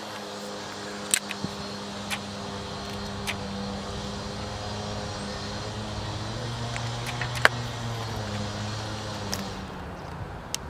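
A steady low mechanical hum with several even tones runs throughout. Over it come a few sharp clicks from the Air Arms ProSport spring air rifle being handled and loaded, the loudest about seven and a half seconds in.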